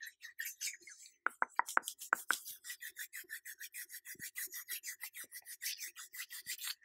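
Close-up ASMR trigger sounds: a few loud, sharp clicks in the first couple of seconds, then a fast, even run of soft clicks and brushing strokes, about eight a second.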